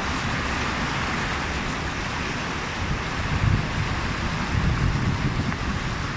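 A car driving through a flooded street, its tyres pushing through the floodwater with a steady rushing and sloshing over the low rumble of the car. The splashing swells briefly about three and a half seconds in and again around five seconds.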